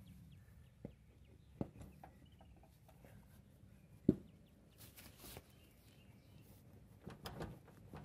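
A few scattered knocks and clicks as a lawn tractor wheel is handled and worked onto its axle, its hub being lined up with the flat on the shaft. The sharpest knock comes about four seconds in. Faint bird chirps sound behind.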